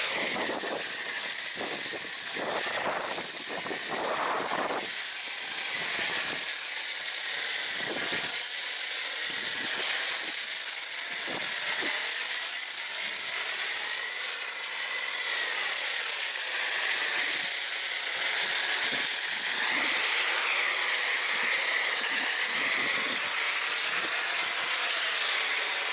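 Pressure washer spraying through a foam cannon: a loud, steady hiss of spray that cuts off abruptly at the very end.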